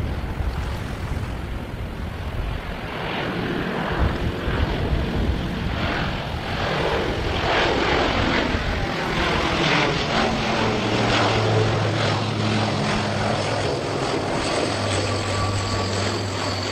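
ShinMaywa US-2 flying boat's four turboprop engines and propellers running at high power as it climbs away from the water and passes overhead. A steady low propeller drone comes through from about ten seconds in.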